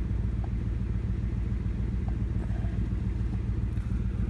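Ford V8 engine idling steadily, heard from inside the cabin as a low, even rumble, with a couple of faint ticks.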